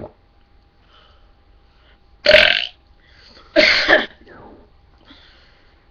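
Two loud burps, each about half a second long, the second coming about a second and a half after the first.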